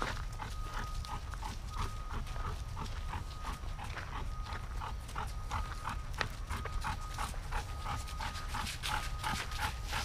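Dog panting hard in a steady rhythm, about three breaths a second, over a low rumble.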